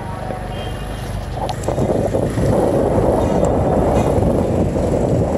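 Motorbike engine running as it rides along a street, with wind rumbling on the microphone; the sound grows louder about two seconds in.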